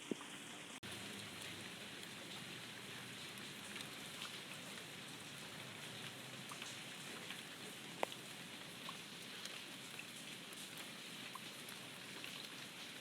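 Steady rain falling, an even hiss with scattered drops ticking close by; one sharper drip stands out about eight seconds in.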